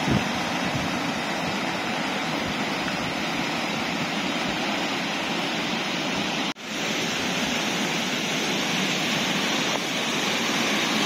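Swollen river in spate, white water rushing steadily over rocks, with a brief break in the sound about six and a half seconds in.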